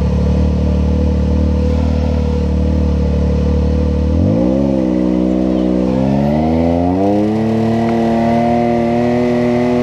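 Side-by-side UTV engine idling steadily, then throttled up about four seconds in: the pitch rises, dips briefly and climbs again to hold at a higher pitch as the machine pulls away over the sand.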